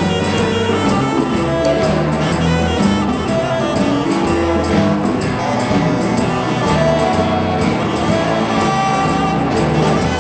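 Live blues band playing with electric guitars, electric bass and drum kit, with a steady beat.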